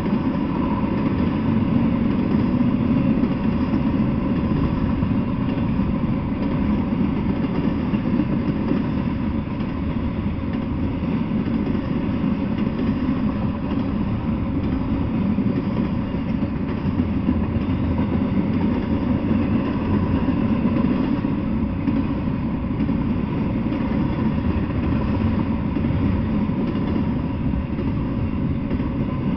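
Double-stack intermodal freight train rolling past: a steady rumble of steel wheels on the rails and the clatter of the well cars, unbroken and even in loudness.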